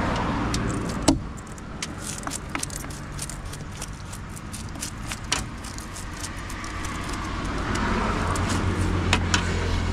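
Steady low rumble of road traffic with scattered sharp clicks and knocks, the loudest a single knock about a second in; the rumble swells over the last few seconds.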